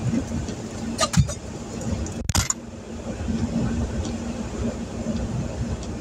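Heavy rain drumming on a parked vehicle's roof and windshield, heard from inside the cab over the steady low hum of the running vehicle. A few brief knocks and clicks sound about one second and just over two seconds in.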